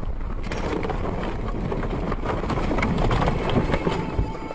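A car running off the road into deep snow: a rough rushing noise of the car ploughing through snow, with many small knocks as snow hits the windshield, growing louder about three seconds in.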